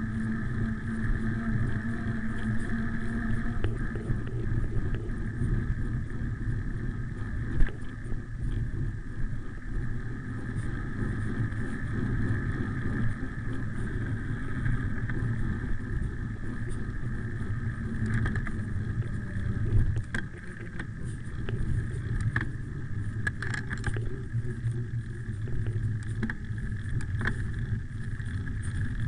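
Bicycle rolling fast downhill on a paved road, heard through a handlebar-mounted camera's microphone: a steady rumble of wind and tyre noise, with scattered clicks and rattles from bumps in the road.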